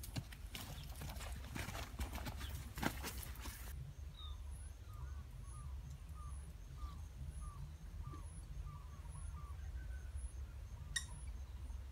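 Footsteps crunching and brushing through dry leaves and undergrowth for the first few seconds, then stopping. After that a short, falling chirp repeats about twice a second, with a single sharp click near the end.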